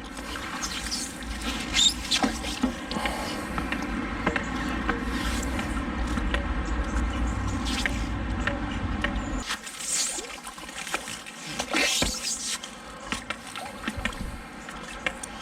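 Shallow river water sloshing and splashing around a wader's legs and a pole magnet dragged through it, over a low rumble that stops about nine seconds in; a couple of sharper splashes follow.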